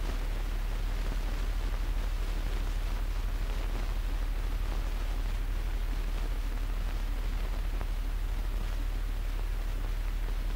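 Steady hiss with a strong low hum and no other sound: the noise floor of a silent film transfer with no recorded soundtrack.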